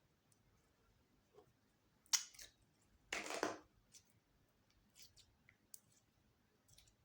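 Slime being worked by hand: a sharp sticky pop about two seconds in, a longer crackling squish about three seconds in, then a few faint ticks.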